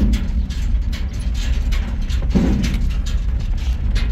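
Pickup truck driving, heard from inside the cab: a steady low engine and road rumble with frequent short rattles and knocks from the cab.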